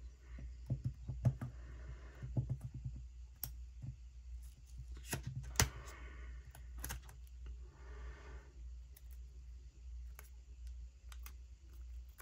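Small handling sounds of paper crafting: scattered light clicks and taps with a few short rustles of paper and sticker sheets, over a steady low hum.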